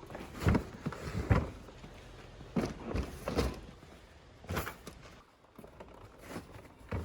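A series of irregular short knocks and thumps, loudest in the first second and a half, growing fainter and more spaced out toward the end.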